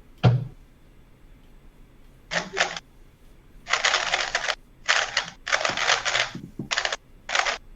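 A speedcube being turned very fast during a timed 3x3 Rubik's cube solve: rapid clacking turns in bursts with brief pauses between them, after a single low thump about a quarter second in.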